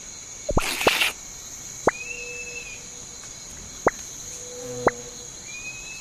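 Cartoon sound-effect track: a steady high insect-like hiss with a sharp click every second or two, and a brief noisy rush about a second in.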